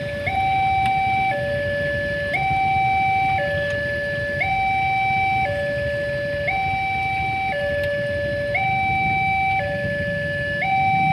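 Railway level-crossing warning alarm sounding its two-tone signal, a higher and a lower tone alternating about once a second, over the low rumble of idling motorcycle engines.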